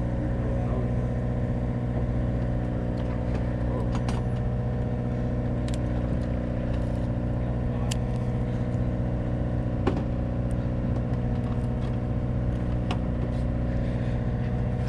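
A fishing boat's engine idling with a steady low hum that does not change, with a few faint clicks and taps over it.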